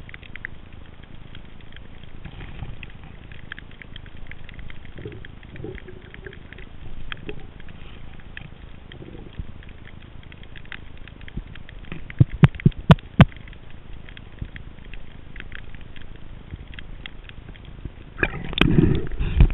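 Underwater ambience picked up by a head-mounted camera: a steady faint crackle of tiny clicks, with a quick run of about five sharp knocks just after twelve seconds and a louder rush of water noise near the end.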